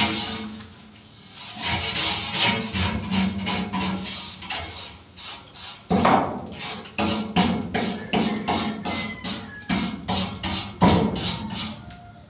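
Hand scraping and scrubbing on a rusty steel roof truss, a rasping rub repeated stroke after stroke as the rust and dirt are cleaned off. The strokes get sharper and louder in the second half.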